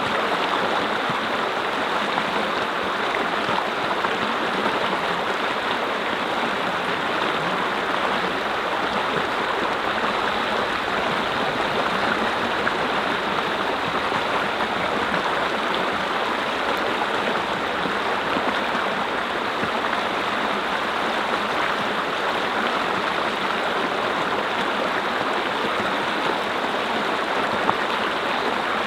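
Mountain stream flowing over rocks: a steady, unbroken rush and babble of water.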